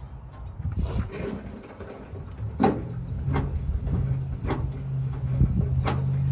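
About four sharp metallic clicks and knocks from hand work on a pickup truck's tailgate lock mechanism. A steady low hum comes in about three seconds in and continues underneath.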